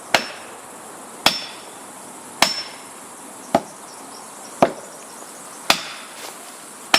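Seven evenly spaced hammer blows, about one a second, driving a wedge into the felling cut of a tree. Each strike is sharp, with a short metallic ring on several of them.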